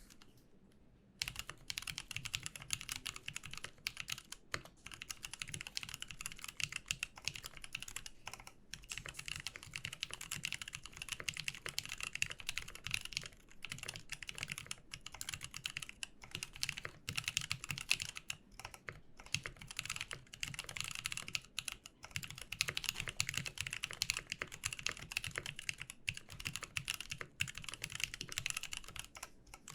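Fast, continuous typing on an Austin R2 custom mechanical keyboard with Zealios tactile switches: a dense run of keystrokes that starts about a second in, broken only by a few brief pauses.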